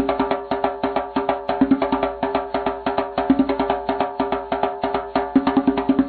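Background music: rapid percussion struck many times a second over a steady held drone.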